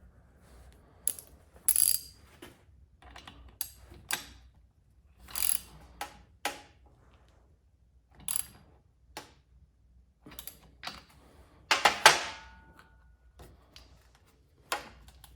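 Scattered sharp clicks and short metallic rattles of hand tools working on a Stihl MS251C chainsaw as a new spark plug is fitted, with the loudest cluster of rattling about twelve seconds in.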